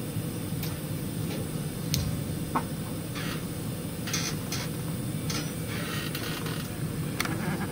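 Tower crane drive machinery humming steadily, heard from the operator's cab while the crane carries a 14-ton precast concrete panel. Scattered sharp clicks and several short hissing bursts sound over it, mostly in the second half.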